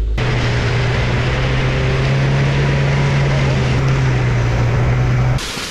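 A vehicle engine running steadily at one pitch, with a strong low hum over loud rushing noise. It cuts in just after the start and stops suddenly about five seconds in.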